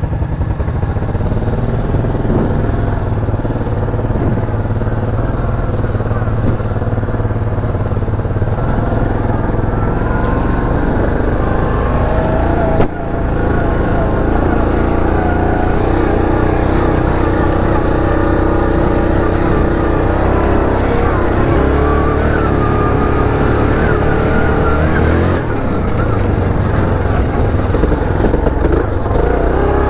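ATV engine running under way, its pitch shifting with the throttle, with a brief dip about 13 seconds in and a drop in pitch near the end.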